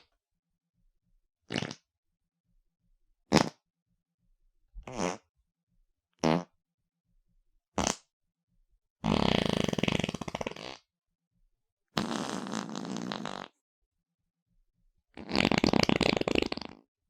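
A string of separate fart sound effects, most of them artificial, each followed by silence: five short blasts, then three longer fluttering ones lasting about one and a half to two seconds each.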